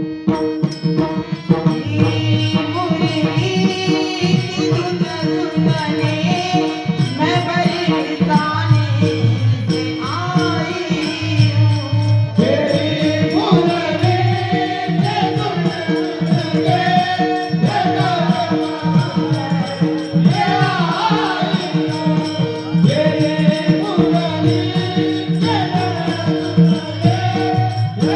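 Devotional bhajan music from a kirtan: a steady held drone with a melody line weaving over it, and drum and small cymbals keeping time.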